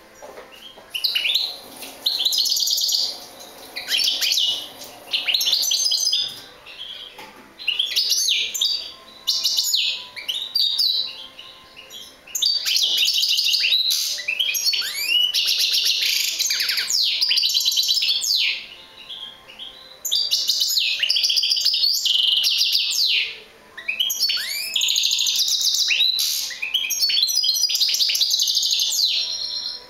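European goldfinch singing: fast twittering song of quick trills and short rising and falling notes, sung in phrases of a few seconds with brief pauses between them, the longest running for about seven seconds in the middle.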